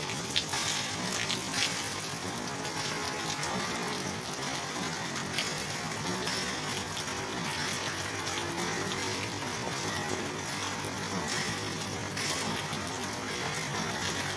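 Steady rain falling on concrete slabs and puddles: an even hiss, with scattered sharper drips and splashes.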